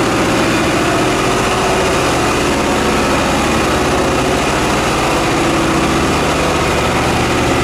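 Cat 794 AC electric-drive mining haul truck's C175-16 diesel engine running steadily at a low, even speed, with a dense engine hum and no change in pitch.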